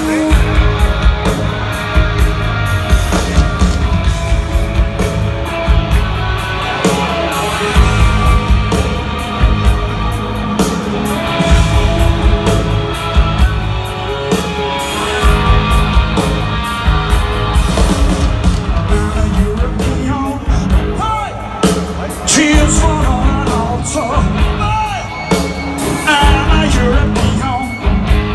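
Live rock band playing loud through a stadium PA: drums, bass and electric guitars, with a male lead vocal.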